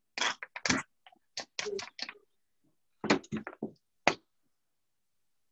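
Kitchen utensils knocking and tapping in short, irregular clusters, each sound cut off sharply.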